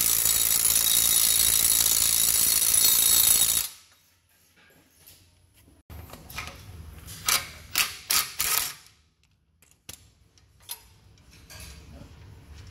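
A power ratchet runs steadily for a few seconds, driving a suspension bolt home, and cuts off sharply about four seconds in. After a pause come several short bursts from a small cordless power tool snugging the bolt.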